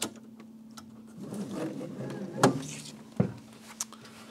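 Sharp plastic clicks and knocks as an air assist nozzle is fitted to the laser head of an xTool M1 laser engraver. The loudest is a snap about two and a half seconds in, as the magnetic nozzle seats on the head. A faint steady hum runs underneath.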